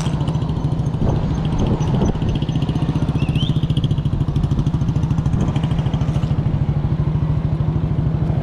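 Yamaha Raptor 700 ATV's single-cylinder engine idling with a steady, even pulse.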